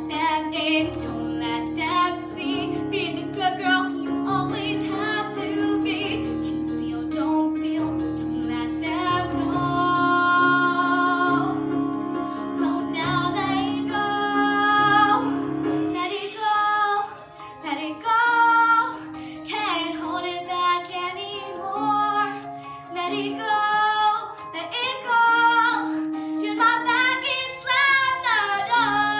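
A girl singing solo into a microphone over instrumental accompaniment. The lower accompaniment thins out about halfway through while her voice carries on.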